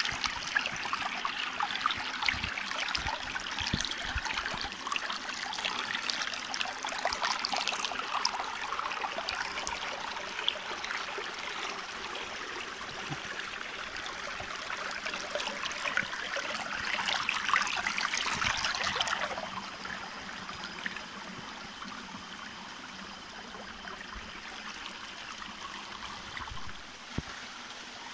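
Shallow water running and splashing over stones and gravel, louder through the first two-thirds and clearly softer after about nineteen seconds.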